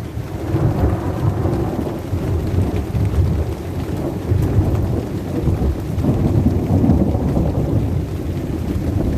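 Thunder rolling after a nearby lightning strike, a deep rumble that swells and eases several times, over steady rain.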